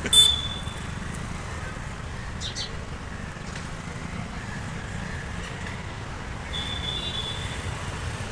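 Steady road-traffic rumble with sparrows chirping over it: a loud chirp just after the start, a few short chirps about two and a half seconds in, and a longer high note near seven seconds.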